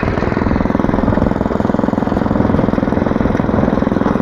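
Small single-cylinder engine of a walk-behind motor hoe running steadily and loud, its rapid firing even throughout, as the tines cultivate between sugar-beet rows.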